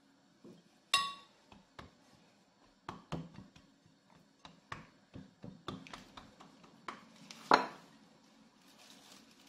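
Hands pressing and patting a ball of shortcrust dough in a ceramic bowl: scattered soft taps and knocks against the bowl, one about a second in that sets the bowl ringing briefly. The loudest knock comes late on.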